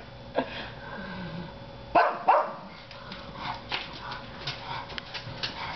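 Pug barking: one short bark, then two loud barks about two seconds in, followed by fainter scattered yips. The dog is agitated by a song it takes for real cats meowing.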